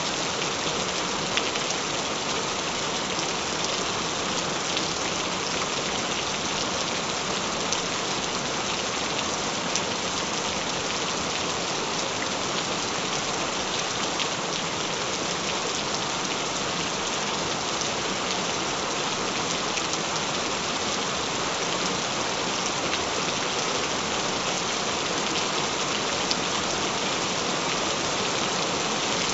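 Steady rain falling: an even hiss with scattered louder drop ticks.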